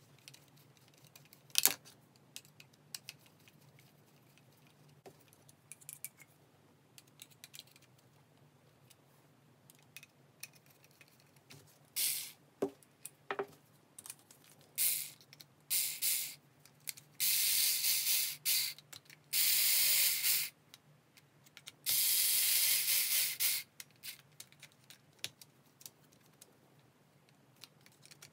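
Small cordless electric screwdriver whirring in several short bursts, driving hex screws into an RC crawler's chassis. Light clicks of small parts and tools being handled come between the bursts, with one sharp click about two seconds in.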